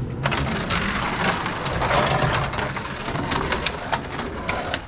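Brick-built toy race cars rolling down a gravity race track, a dense clattering and rattling with many sharp clicks that starts about a quarter second in and fades near the end.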